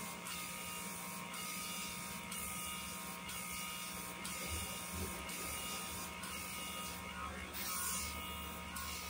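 A small machine running with a steady hum, with a faint hiss pulsing about once a second and a low rumble growing near the end.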